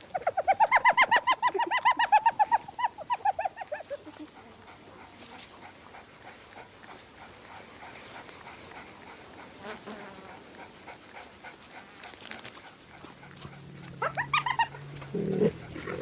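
A wild animal calling in a fast run of short, high-pitched notes for about four seconds, sagging in pitch as it trails off. After a quieter stretch, a low drone and a shorter run of similar calls come near the end.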